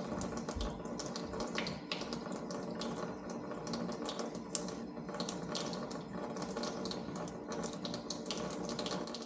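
Running, splashing water over a steady motor hum.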